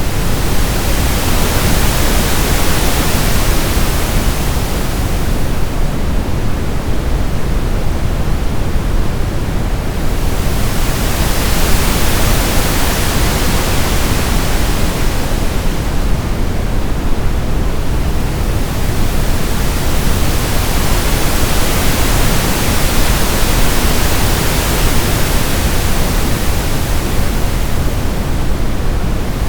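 Synthetic brown noise, steady and deep, layered with pink noise that slowly swells and fades about every ten seconds.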